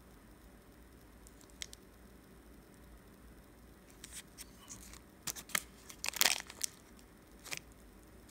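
Plastic wrapper of a block of polymer clay crinkling and tearing as it is handled and opened by hand. A run of sharp crackles starts about halfway through, and the loudest comes near the end.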